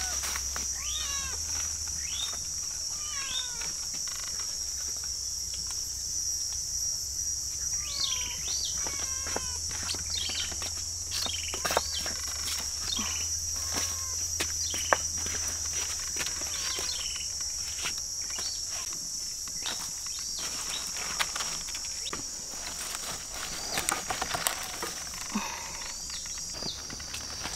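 A steady high-pitched insect drone with birds chirping again and again over it, and scattered sharp clicks and knocks.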